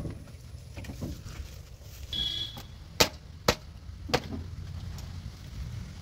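A brief squeak, then three sharp knocks as a man climbs onto a JCB 3DX backhoe loader and handles its cab, over a low steady rumble.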